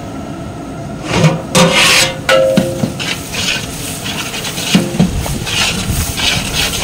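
A ladle scraping around a cooking pot, stirring onions frying in oil, in repeated rasping strokes that start about a second in. The onions are being cooked down until soft.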